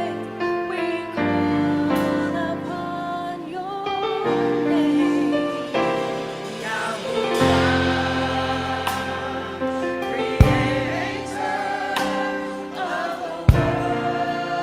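A choir singing in slow, sustained chords. Two sharp clicks sound, one about ten seconds in and another about three seconds later.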